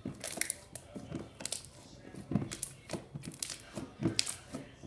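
Fluffy, glossy slime being squished and stretched by hand for ASMR, making irregular sticky pops and crackles, several a second.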